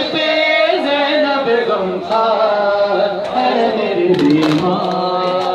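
Men's voices chanting a noha, a Muharram lament, in long held notes, with a few sharp slaps about four seconds in.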